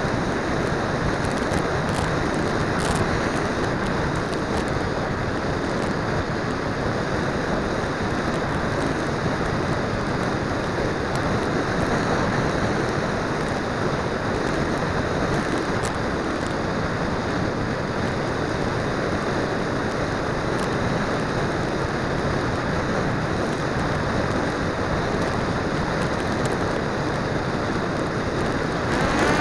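Steady rush of air over the onboard camera's microphone on a radio-controlled flying wing in flight, even and unbroken, with no clear motor tone standing out.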